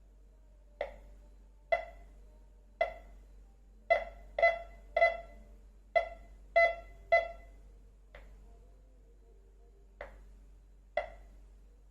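MD4030 metal detector giving short pitched beeps, about a dozen at uneven intervals, clustered closely in the middle and spaced out toward the end, as it responds to metal near its search coil.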